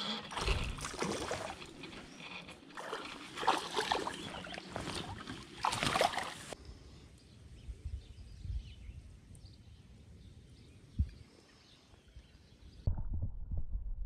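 Water splashing and sloshing at close range as a hooked fish is fought and brought in on a creek, in irregular loud strokes; about six and a half seconds in it drops to faint creek ambience. Near the end it turns to a muffled low rumble of water as heard by a camera held underwater.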